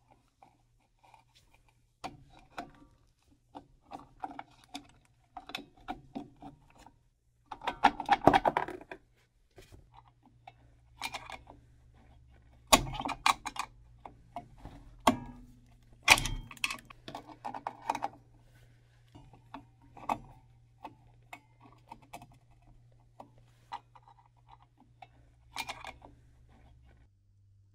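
Irregular metallic clinks, clicks and knocks of hand tools and parts being handled during work on rear drum brakes, with a busier clatter about eight seconds in, over a faint steady low hum.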